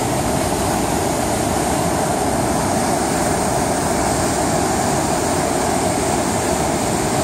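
Jordan River rapids, water rushing over rocks in a strong flow, a steady loud rush with no break.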